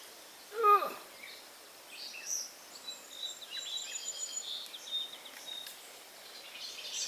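A person's short cry, falling in pitch, just under a second in. Then small birds chirp in quick, high repeated notes over outdoor background noise.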